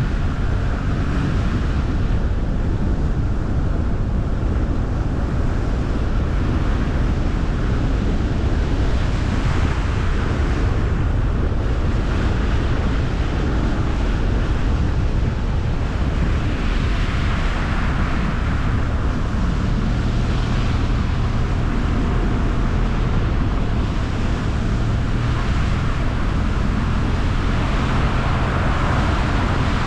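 Car driving steadily on the road: continuous low rumble of tyres and engine with wind rushing past, swelling and easing at times.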